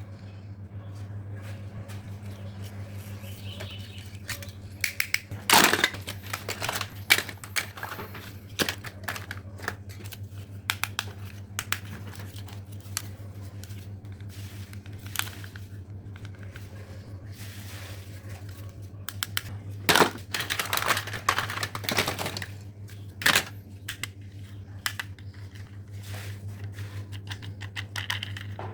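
Old toys being handled and rummaged through: irregular clicks, knocks and crinkling rustles, busiest around six seconds in and again around twenty seconds in, over a steady low hum.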